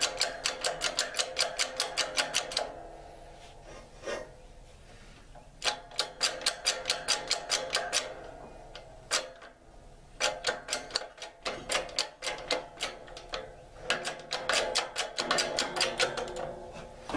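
Hydraulic shop press being worked in four runs of rapid, even clicks, about four to five a second, with short pauses between runs, as it presses the rear ball bearing onto a T-90 transmission main gear.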